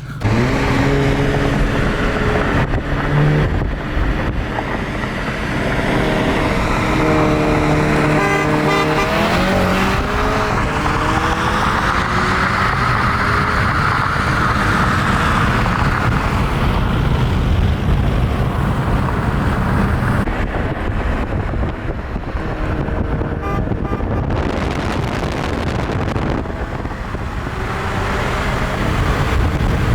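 Car engines running and revving, with one rising sharply in pitch about eight seconds in as it accelerates hard, followed by a long steady rush of engine and road noise.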